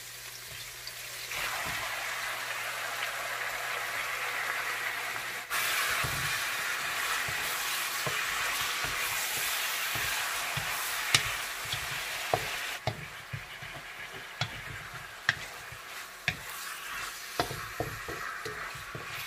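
Chicken wings sizzling in hot oil in a wok, stirred, with knocks and scrapes of the utensil against the pan. The sizzle jumps louder about a second in and again about five seconds in, then eases after about thirteen seconds, leaving scattered sharp knocks.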